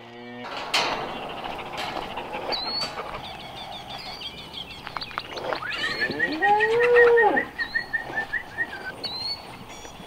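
A cow mooing once, a long call of about two seconds that rises and then falls, some six seconds in. Birds chirp briefly here and there around it.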